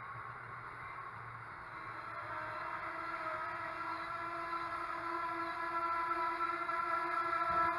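A train approaching on the electrified line, its steady whine of several even tones growing gradually louder.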